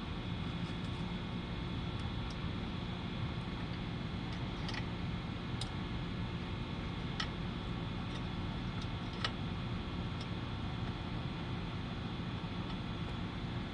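Scattered light clicks and taps of small parts being handled during a brake job, over a steady hum; the sharpest click comes about nine seconds in.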